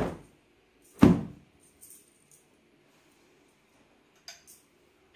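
Freshly washed duvet cover shaken out hard twice, about a second apart, each shake a loud flapping snap of fabric. A few soft fabric rustles follow, fainter, near the end.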